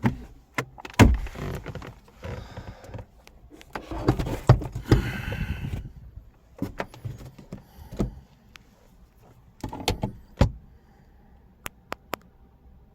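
Handling noises from a car's door and interior: a series of clicks and knocks with a few heavier thumps, and a scraping rustle about four to six seconds in.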